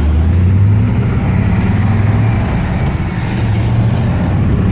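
1956 Ford Thunderbird's 312 Y-block V8 and road noise heard from inside the cabin while driving: a steady low drone.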